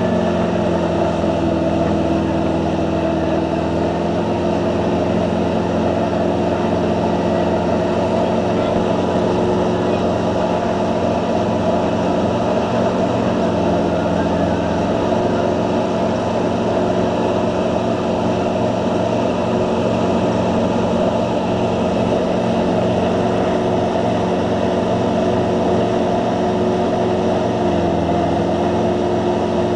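Tow boat's engine running steadily at speed, its note stepping slightly up or down a few times, over the constant rush of the churning wake.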